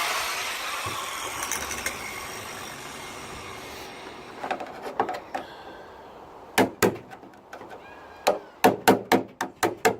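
A power tool cutting the car's sheet steel winds down and fades, then about a dozen sharp metallic knocks on the sheet-metal panel, coming faster near the end, as the cut panel is worked loose.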